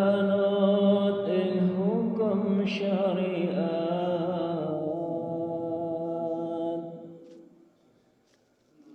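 A man's voice chanting one long, drawn-out, ornamented phrase of Islamic devotional chant, which fades out about seven and a half seconds in.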